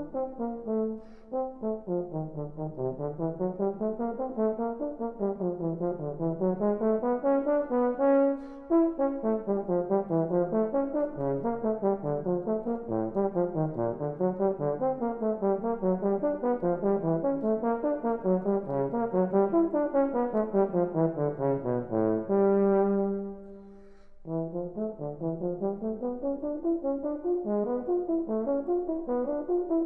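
Instrumental music with a brass-like sound: one melodic line of quick notes running up and down in rapid scales. About 22 seconds in, a single long note is held before the fast runs resume.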